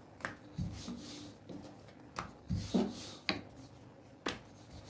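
A few sharp clicks and soft thumps of hands handling a freshly rolled-out circle of dough on a stone countertop.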